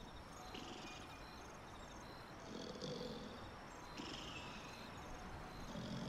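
Slow, rhythmic sleep breathing with a soft rasp on each breath, like gentle snoring, one breath cycle about every three seconds.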